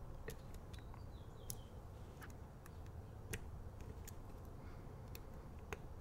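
Light, scattered metal clicks, about ten in all at uneven intervals, from a steel lock pick probing and setting the pins of a Master Lock Street Cuffs tubular lock; the lock is still shut, with pins left to set.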